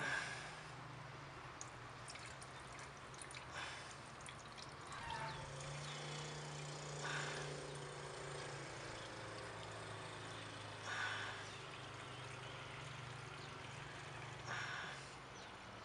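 Petrol being poured from a plastic jug into a brush cutter's plastic fuel tank, a trickling pour with a few louder splashes. A steady low hum runs underneath.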